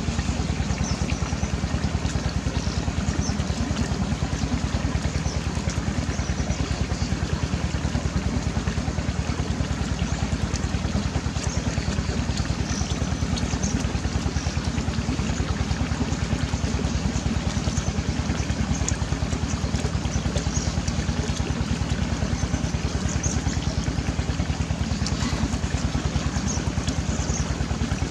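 A small engine running steadily: an even, rapid low throb that does not change in speed.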